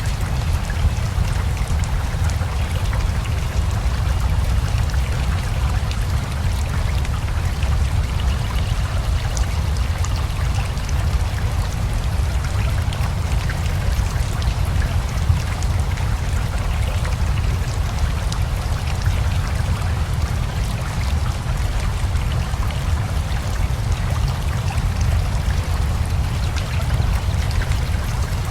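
Steady rain mixed with a flowing river: an even wash of water noise with a heavy low rumble and fine scattered drips, unchanging throughout.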